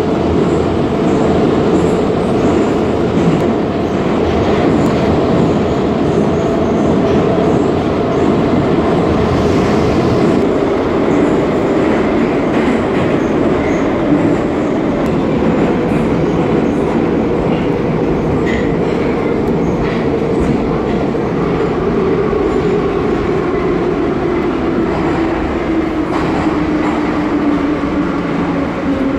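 Ezh3/Em-508T metro train running, heard from inside the passenger car: a loud, steady rumble of wheels and running gear. Over the last several seconds a motor whine falls in pitch as the train slows.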